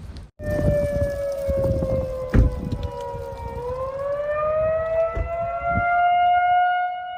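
A siren wailing: its pitch sinks slowly, then climbs again a little over three seconds in and holds high, over a low rumble of background noise. A sharp crack sounds about two and a half seconds in.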